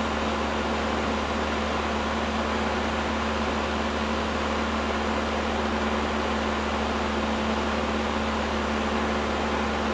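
Cessna 172's engine and propeller droning steadily in the cabin, a constant hum with no change in pitch.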